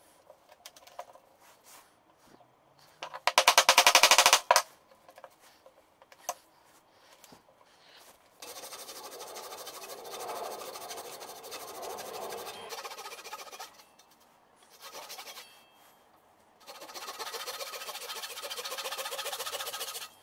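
Fine-toothed hand saw cutting plywood held in a vise, in two long stretches of steady sawing with a short burst of strokes between them. About three seconds in there is a loud burst of rapid scraping strokes.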